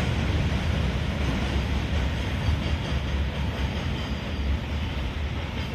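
Goods train of loaded coal wagons running away along the track: a steady low rumble.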